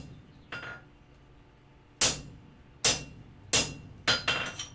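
Hand hammer striking a slit chisel held on hot steel on the anvil, chiseling in layout marks. A light tap comes first, then about six sharp metallic blows, quicker near the end, each leaving a faint ring.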